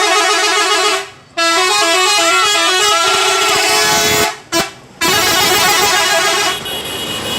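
Telolet bus horn, a multi-tone air horn, playing its long tune of quickly changing notes. It sounds in three long loud spells with a short toot between the second and third, and stops shortly before the end.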